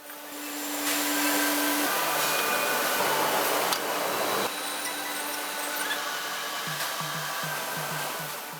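Steady hissing machine noise, like a blower or air tool, fading in at the start. A low hum runs under it for the first two seconds, and a faint rapid pulsing of about five beats a second comes in near the end.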